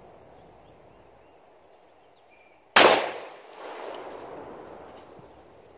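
A single 9mm pistol shot about three seconds in, its report echoing and dying away over a couple of seconds, with a faint metallic ring just after.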